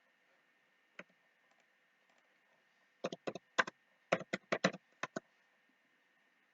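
Computer keyboard keystrokes: one key press about a second in, then a quick run of about ten keys typed in a row, as when entering a dimension value.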